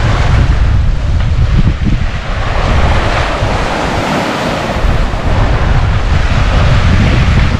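Strong wind buffeting the microphone over the rush of the sailing catamaran's wake and breaking waves in rough seas.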